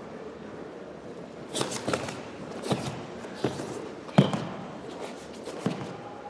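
Karate gi snapping sharply with fast strikes and a kick in a kata, mixed with thuds of bare feet on the mat: about eight quick cracks and thumps, the loudest about four seconds in.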